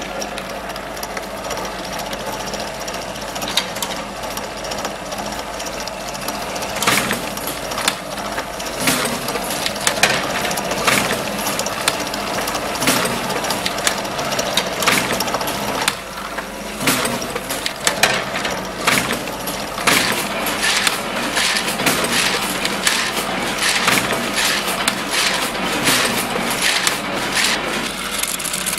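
Recorded artisan-workshop machinery: a machine running steadily under dense, irregular clacks and knocks of tools at work, with a brief drop about halfway through.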